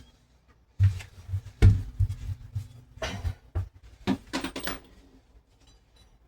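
Irregular knocks and light metallic clinks of door hardware and tools being handled, the loudest knock about a second and a half in.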